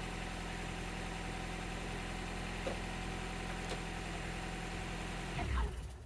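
Honda Prelude's four-cylinder engine idling steadily with a light belt whine, which the owner insists is not a bad belt. Near the end the engine is switched off and winds down, falling in pitch.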